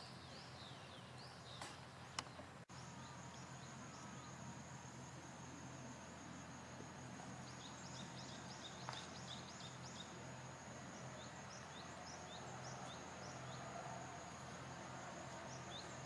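Faint outdoor ambience: clusters of short, falling bird chirps, and from a few seconds in a steady high thin whine like an insect. A sharp click comes just after two seconds, followed by a brief dropout where the sound cuts.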